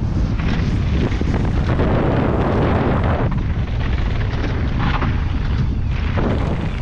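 Wind buffeting the microphone in a heavy, continuous rumble, mixed with the knocks and rattle of a Pivot Firebird 29 mountain bike being ridden fast over rough trail.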